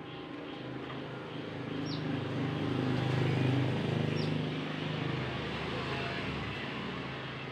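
A motor vehicle passing, its engine hum swelling to a peak about three and a half seconds in and then fading. Two short high chirps come from a bird, one about two seconds in and one about four seconds in.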